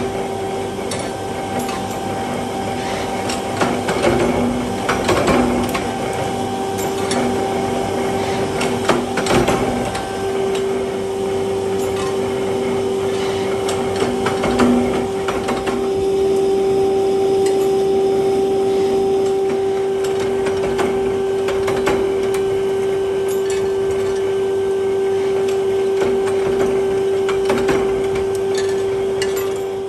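Power press running with a steady hum while hot steel rods are pressed to form their heads, with irregular sharp metal clanks from the strokes and the handling of the rods.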